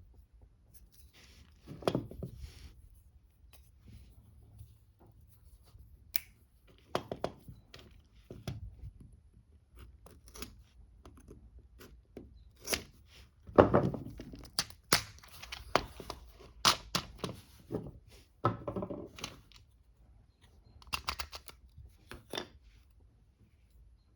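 A cardboard box of .22LR cartridges being handled and opened by hand: irregular clicks, scrapes and rustles of packaging, loudest just past halfway.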